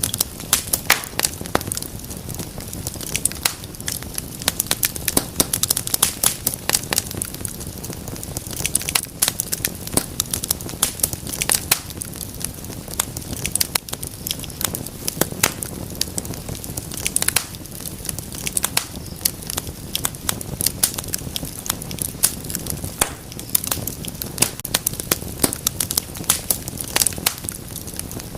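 Wood fire crackling in a fireplace: a dense, irregular run of sharp pops and snaps over a steady low hiss.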